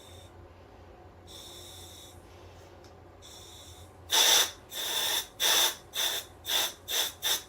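Air hissing through a SMACO full-face dive mask's regulator: two quieter breaths with a thin whistle, then about seven short, loud bursts of air, coming quicker toward the end, as the clearing (purge) button is pressed to blow the fog out of the mask.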